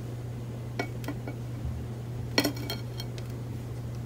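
A kitchen knife cutting through a slice of white bread on a ceramic plate, the blade clinking against the plate several times, loudest about two and a half seconds in. A steady low hum runs underneath.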